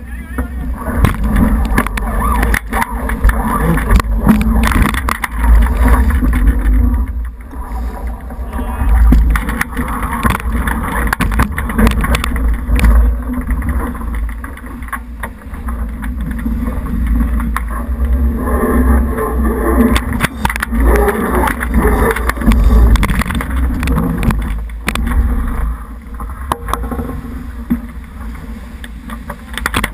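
Wind buffeting the boom-mounted camera housing of a J80 sailboat beating in a 14–16 knot breeze, a deep rumble that rises and falls with the gusts, over the rushing and splashing of the hull's bow wave. Spray strikes the housing in scattered sharp ticks.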